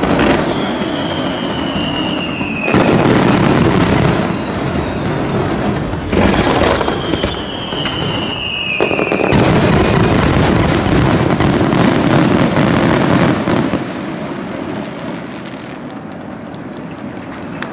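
Fireworks display: a dense barrage of aerial shells bursting one on another, with two falling whistles early on and midway, easing to quieter bursting about fourteen seconds in.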